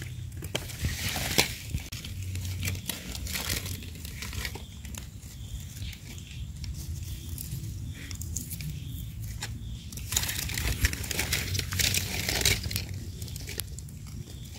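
Dry leaf litter rustling and crackling in irregular bursts with sharp snaps, as someone moves through it and handles the forest floor while picking mushrooms.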